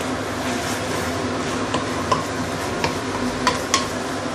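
Yellow noodles sizzling in a stainless steel pan on high heat as a wooden spatula stirs and tosses them, with several light knocks of the spatula against the pan.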